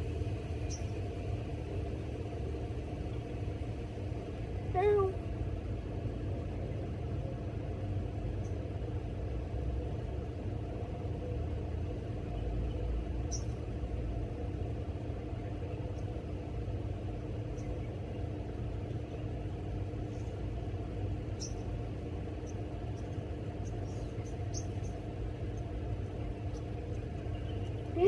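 Kitten meowing: one short call falling in pitch about five seconds in, and another right at the end, over a steady low rumble.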